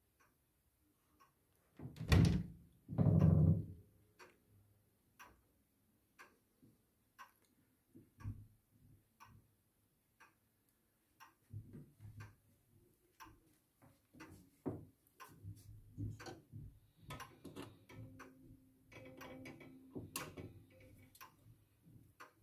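E. Laufer Schwenningen grandfather clock ticking about once a second. There are two loud knocks about two and three seconds in, and denser clicking and rattling in the second half as the clock's weight chain is handled.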